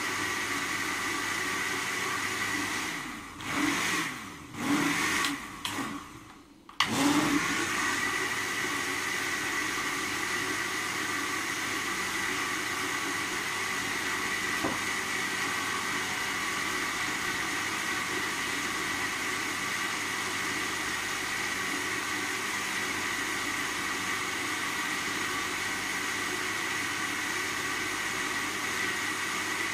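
Countertop jug blender running steadily on a pink liquid mixture. About three seconds in, its motor cuts out and comes back several times, its pitch winding down and up. Just before seven seconds it comes back on sharply and runs steadily again.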